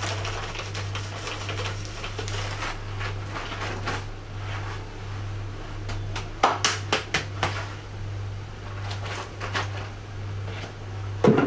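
Kitchen handling noises over a steady low hum: a quick run of knocks and clatters about six and a half to seven and a half seconds in, and a single louder knock near the end.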